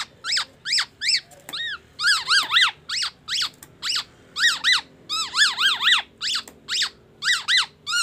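Black-naped oriole calling in quick runs of short notes, each rising then falling in pitch, two to four notes at a time with brief pauses between runs.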